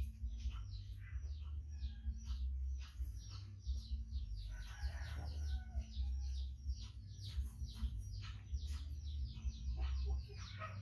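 Small birds chirping busily, many quick falling chirps every second, over a steady low rumble.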